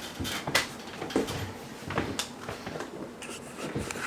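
Scattered light clicks and knocks of hands handling the corbel cover and its mounting hardware, with a few sharper taps about half a second in, at two seconds and near the end.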